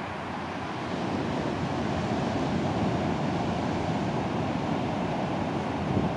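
Ocean surf washing onto a flat sandy beach, a steady rushing noise mixed with wind rumbling on the microphone; it grows a little louder about a second in.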